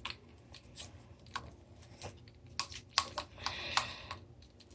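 Scattered plastic clicks and knocks from handling a toy Nerf blaster, busiest past the middle, with a short rustle about three and a half seconds in.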